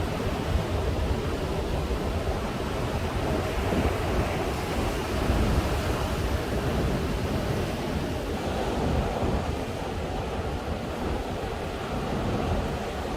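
Ocean surf washing onto a beach in a continuous roar of waves, with wind buffeting the microphone.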